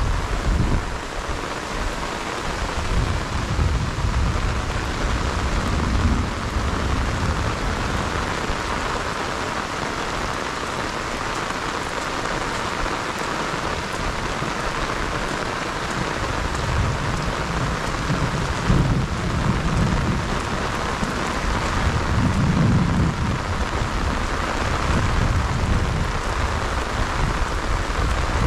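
Heavy rain falling steadily on a rice paddy and flooded marsh water: a dense, even hiss, with low rumbles swelling and fading now and then.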